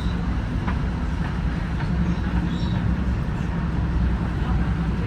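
Passing train, a steady low rumble with faint clicks here and there.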